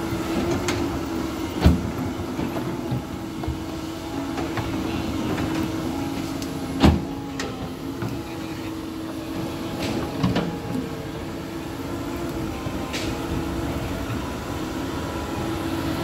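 Doosan DX225LCA crawler excavator's diesel engine running steadily while the bucket works loose soil. Two sharp knocks come about 2 and 7 seconds in, and a lighter one about 10 seconds in.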